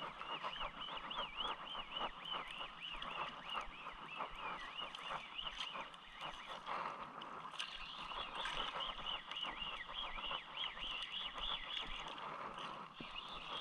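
Fishing reel being cranked to bring in a hooked fish. Its gears give a wavering whine that rises and falls with the turns of the handle, over a scatter of small clicks, and the whine eases off briefly about halfway through.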